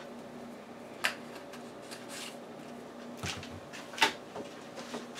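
Two sharp knocks on a kitchen countertop, about a second in and again about four seconds in, with a brief rattle between, as spice containers are handled, closed and set down. A faint steady hum runs underneath.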